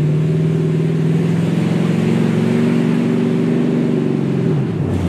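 Monster truck engine pulling steadily under throttle, heard from on board, with its revs dropping sharply near the end.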